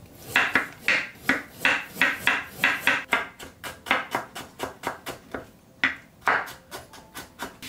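Kitchen knife julienning a carrot on a wooden cutting board: a run of sharp knocks of the blade against the board. They come about three a second at first and quicken to about five or six a second from about three seconds in.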